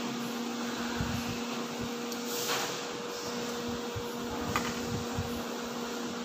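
Steady mechanical whir with a low electrical hum from a running machine, broken by a few soft clicks and a brief hiss about two and a half seconds in.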